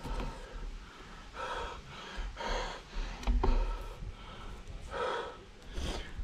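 A road cyclist's heavy breathing while riding: about five forceful breaths roughly a second apart, over a low steady wind rumble on the microphone.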